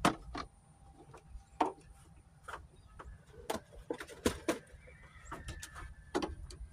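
Scattered sharp clicks and knocks of small hard parts and tools being handled, about a dozen spread unevenly, as a security light fixture and its gasket are readied for mounting.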